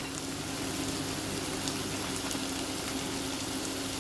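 Sliced onions sizzling in hot olive oil in a frying pan: a steady hiss with a few scattered small pops, over a steady low hum.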